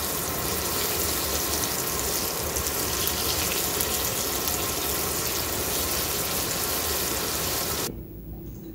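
Italian sausage patty sizzling in hot oil in a frying pan, a steady hiss that cuts off abruptly near the end.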